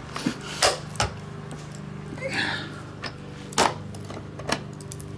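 Hard plastic clicking and creaking as a 3D-printed PLA gear-bearing skateboard wheel is forced and strained in an attempt to snap it. There are several separate sharp clicks, with a brief scrape in the middle.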